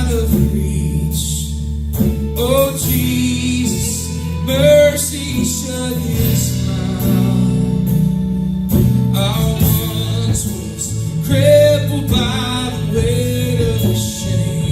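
A worship band playing a song with guitar, a singer leading the melody over sustained chords.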